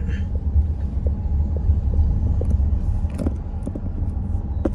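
Car driving slowly, heard inside the cabin: a steady low rumble of engine and tyres on the road, with a couple of sharp clicks in the second half.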